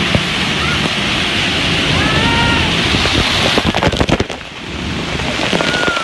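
Water-park waterfall pouring onto inflatable tubes and the river: a loud, steady rush of falling water. About two-thirds through comes a quick spatter of splashes, and after it the rush is lower.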